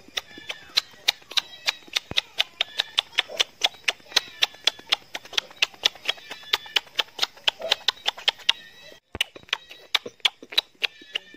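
A rapid, even clicking, about four clicks a second, with a brief break near the end, over faint voices.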